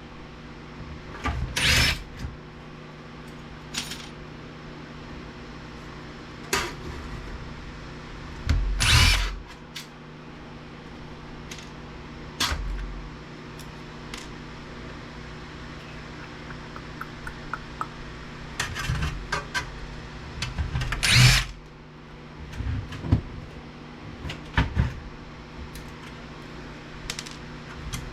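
Hands-on teardown of a VCR/DVD combo unit: metal parts and panels knocking and clattering, with three short, louder bursts about 2, 9 and 21 seconds in and scattered small clicks between them, over a steady low hum.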